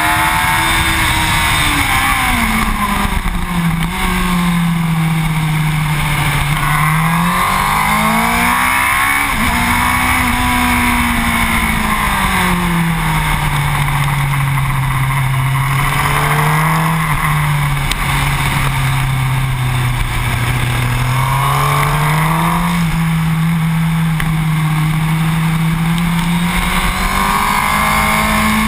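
Motorcycle engine running at track speed, its revs falling and rising in long swings every few seconds, under heavy wind rush on the microphone.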